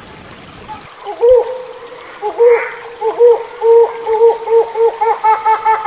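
Stream-like water noise for about a second, then a hornbill calling: a run of short notes that dip and rise in pitch, coming faster and more evenly near the end.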